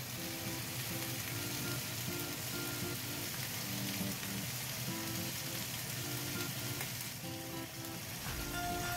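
Tuna fish head pieces frying in oil in a grill pan, a steady sizzling hiss, with background music playing a short repeating melody over it.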